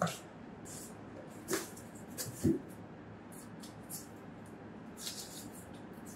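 Cardboard box and foam packaging being handled: brief rustling scuffs, with two soft knocks about one and a half and two and a half seconds in.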